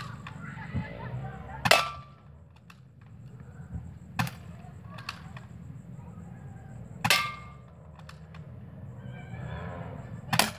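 Spring-powered Skyma SM1003C AK-47 airsoft rifle firing BBs at bottle-and-can targets: three sharp cracks, about two seconds in, about seven seconds in and near the end, with lighter clicks between. The first two cracks carry a short metallic ring.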